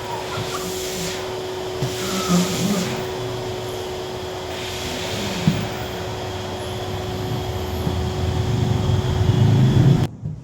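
Wet and dry vacuum cleaner running: a steady rushing noise with a constant whine, growing louder toward the end, then cut off abruptly.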